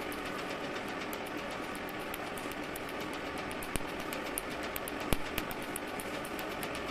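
PicoSure picosecond laser firing on a neck tattoo: a quick series of sharp snapping clicks, several a second, over the steady whir of the running machine.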